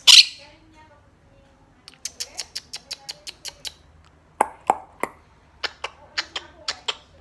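Blue Quaker parrot (monk parakeet) giving one loud squawk, then a rapid series of short, sharp chirps and clicks in quick runs, about five a second.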